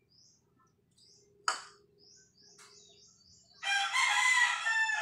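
A rooster crows once, a long call of about a second and a half near the end. A single sharp knock comes about a second and a half in, and small birds chirp faintly throughout.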